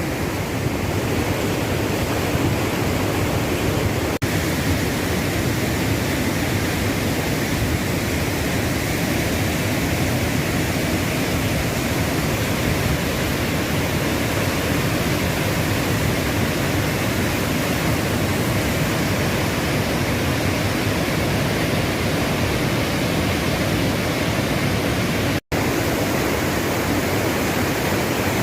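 Waterfall rushing steadily, a loud even hiss of falling water, broken by a very brief dropout to silence a few seconds before the end.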